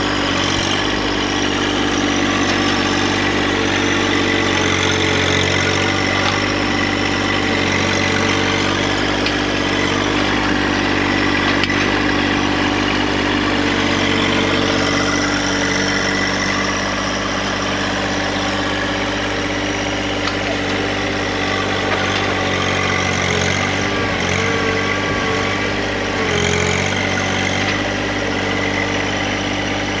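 John Deere 1025R compact tractor's three-cylinder diesel engine running steadily as the front loader works a stump bucket into the soil around a small tree. The engine note dips briefly twice, about 24 and 26 seconds in.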